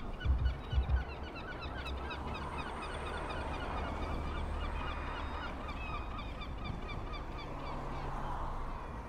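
A flock of birds calling all at once: a dense, overlapping chatter of short calls over a steady low rumble, with a few low thumps in the first second.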